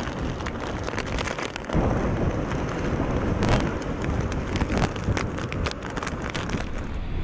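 Typhoon wind and heavy rain: strong gusts buffet the microphone in a loud, steady rumble, with a dense spatter of sharp ticks from rain and debris striking. The rumble drops away briefly just under two seconds in, then surges back.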